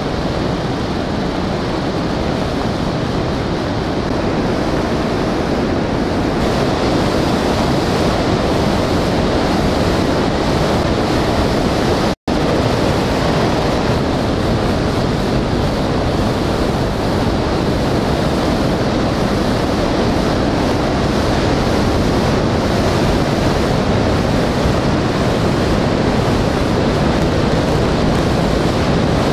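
Flood-swollen South Fork Merced River rushing through whitewater rapids: a steady, loud noise of churning water, with a momentary dropout about twelve seconds in.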